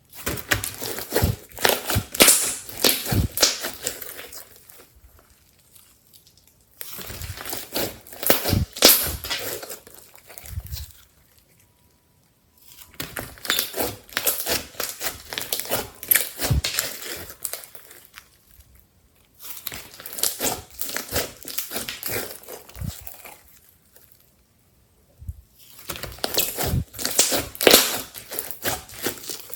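Slime being squeezed and kneaded by hand, giving dense crackling and popping in five bursts of a few seconds each, with short pauses between them.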